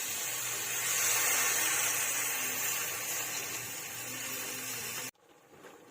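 Steady hiss of crabs cooking in a pot of Sprite, with a faint low hum underneath; it cuts off abruptly about five seconds in.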